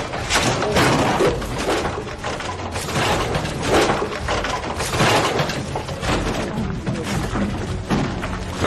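Repeated crashes, thuds and breaking sounds of goods being smashed and knocked over as a shop is ransacked, one impact after another.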